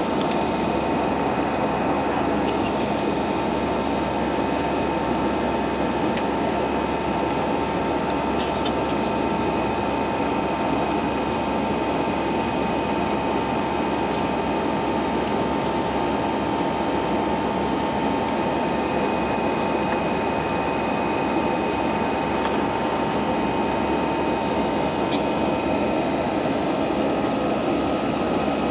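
Airbus A320 cabin noise in the climb after takeoff: the jet engines' steady rush with a constant high whine over it, heard from a window seat beside the wing. A few faint ticks are heard now and then.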